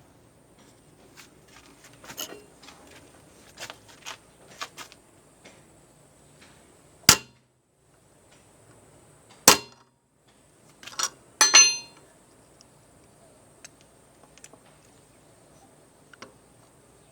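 Metal hand tools knocking and clinking against an old ratchet as it is worked at to get it open: small clicks at first, two loud sharp knocks a couple of seconds apart, then a ringing metal clang.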